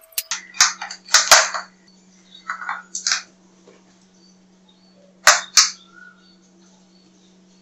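White plastic filter housings of an RO/DI water purifier being handled and opened: a cluster of sharp plastic clunks and scraping rattles in the first three seconds, then two more knocks a little after five seconds, over a steady low hum.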